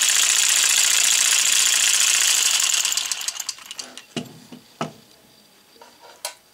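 Homemade two-solenoid electric model engine running fast: a loud, dense, rapid clatter of solenoid plungers and make-and-break switch contacts. About three seconds in it fades out into separate clicks, followed by three single knocks as the engine is handled and set down.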